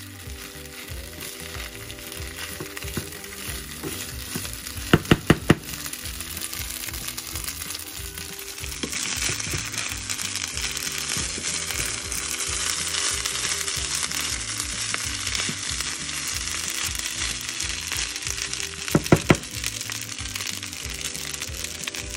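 Fried rice sizzling in a nonstick frying pan while a wooden spatula stirs and scrapes it; the sizzle grows louder about nine seconds in. Two quick runs of sharp knocks, about five seconds in and again near the end, as the spatula taps against the pan.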